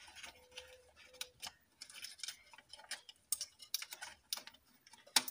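Irregular small clicks and taps of plastic parts as hands fit and press a circuit board into an LED torch's plastic housing, with one sharper click near the end.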